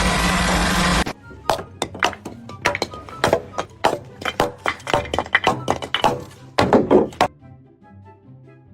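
A loud rush of noise for about a second, then a fast, irregular run of knocks and clinks from hard objects striking, lasting about six seconds. Faint background music follows near the end.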